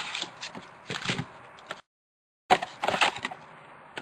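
Packs of football trading cards being pulled from their cardboard box and handled, with wrappers crinkling and scraping against each other and the box in short bursts of clicks and rustles. The sound cuts out completely for under a second about halfway through.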